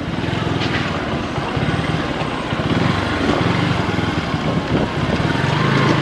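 Small motorcycle engine running steadily at low speed, a continuous low putter of rapid firing pulses.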